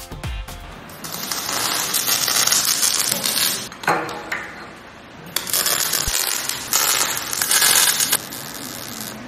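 MIG welding on steel wear plate: the arc crackles and spits in several runs of a second or more, with short pauses between beads.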